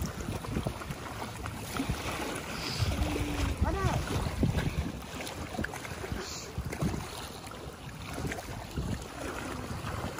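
Wind buffeting the microphone in uneven gusts, with small waves lapping at a sandy lakeshore.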